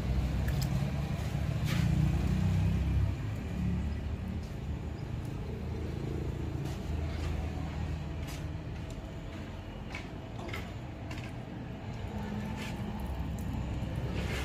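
A low, steady rumble, loudest in the first few seconds, under scattered short wet rubbing and splashing sounds of hands scrubbing a wet Belgian Malinois's coat.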